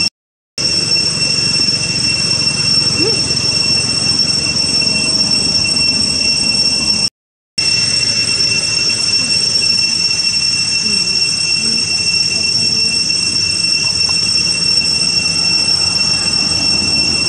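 Steady, loud, high-pitched drone of cicadas, an unbroken two-toned buzz, cut off twice for a moment.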